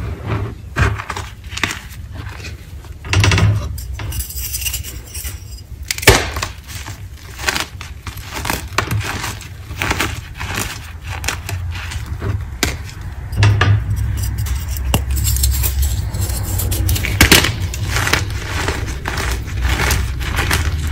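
Chunks of gym chalk crunching and crumbling as a hand squeezes and rakes through a pile of chalk powder: a dense run of small crackles, with a sharper snap about six seconds in and another near the end.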